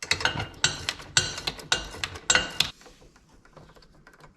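Small metal hardware and tools clinking together: a quick, uneven run of about half a dozen ringing metal clinks that stops a little over halfway through.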